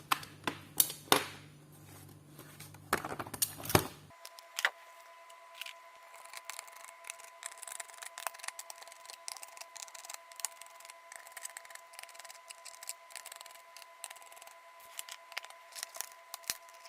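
Small clicks, taps and scrapes of a screwdriver and plastic parts as a laptop's bottom cover is taken off, sharpest in the first few seconds. From about four seconds in, a faint steady high hum sits under continued light ticking.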